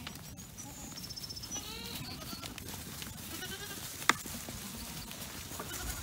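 A herd of hungry goats bleating faintly at feeding time, several short calls in the first half. A single sharp click about four seconds in.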